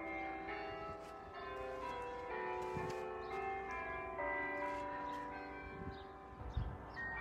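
Several church bells ringing together, strikes coming every second or less and overlapping as each one rings on. A brief low thump near the end.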